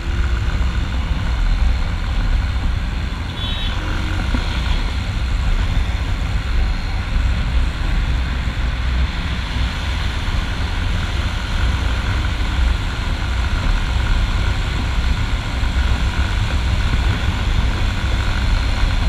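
Hozaka 150 GNX motorcycle being ridden at road speed: its engine runs steadily under a heavy, steady rush of wind noise.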